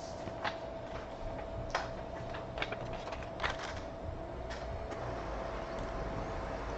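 Scattered light clicks and taps, about a dozen at uneven intervals, over a steady faint hum.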